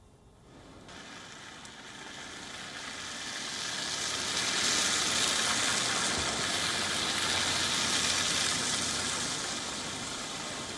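A vehicle passing with a steady tyre hiss that swells over a few seconds and then slowly fades, with a low engine hum joining about halfway through.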